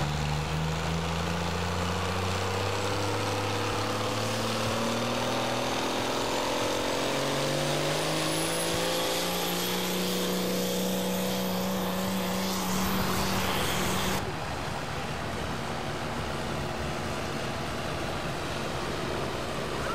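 Pulling tractor's diesel engine at full load dragging a weight sled, its pitch climbing and then holding high, with a thin high whine that rises alongside it. About two-thirds of the way through it cuts off abruptly to a quieter, steady, wind-like noise.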